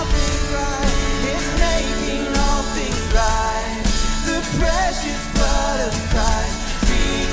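Live church worship band playing a pop-rock song on keyboard, acoustic guitars, bass guitar and electronic drum kit, with a steady beat.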